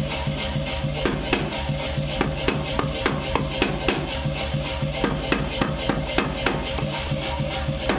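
Background music with steady held notes, over a run of sharp strikes about three a second.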